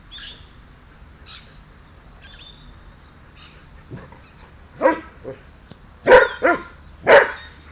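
A pet dog barking, about four sharp barks in the second half, after a quiet stretch.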